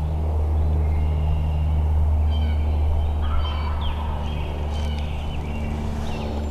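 A wild turkey gobbling once, briefly, about three seconds in, over a loud steady low hum, with higher chirps scattered through.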